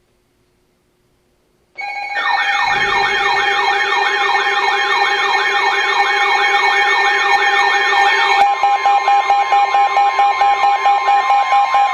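Layered electronic siren and alarm tones start about two seconds in: a fast wail rising and falling about three times a second over steady tones. About eight seconds in they change to a rapid pulsing.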